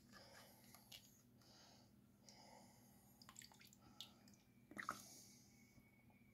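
Near silence: a faint steady room hum with a few soft clicks of a plastic bottle and its measuring cap being handled, the loudest nearly five seconds in, and a faint trickle as liquid plant food is poured into the cap.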